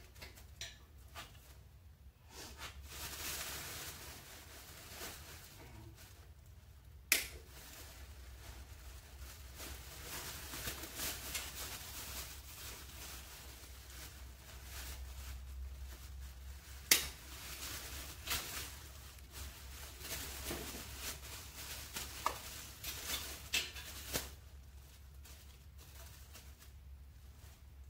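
Hands working on a steel motorcycle shipping crate: scattered small clicks and faint rustling, with two sharp metal clanks about ten seconds apart and a few lighter clinks after the second.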